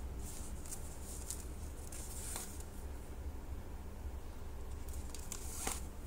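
Soft, short swishes of yarn being drawn through crocheted stitches as pieces are sewn together, a few scattered through, the clearest about two seconds in and near the end, over a steady low hum.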